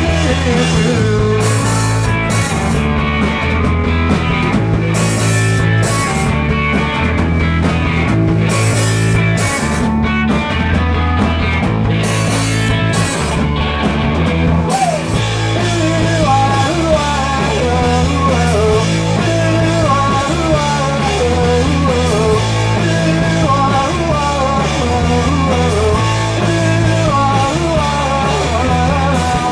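Live rock band playing an instrumental passage: electric guitar over a repeating bass line and drums. From about halfway through, the cymbals play steadily and a guitar line winds above the band.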